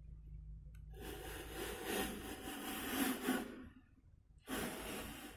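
A plastic anatomical head model being turned by hand on a table, its base rubbing and scraping against the surface: a long rubbing noise lasting about three seconds, then a shorter one near the end.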